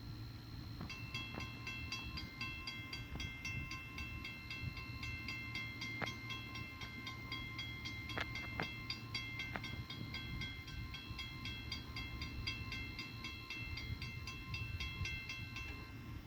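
Railroad grade-crossing bell ringing rapidly and steadily, several strokes a second, starting about a second in and stopping near the end, with a steady low rumble underneath.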